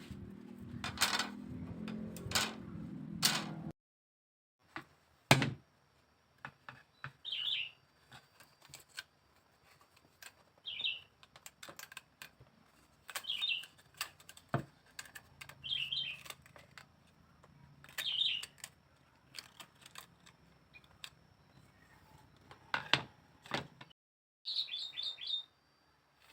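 Background music for the first few seconds, then a small bird chirping in short high bursts every two or three seconds among scattered sharp clicks and taps.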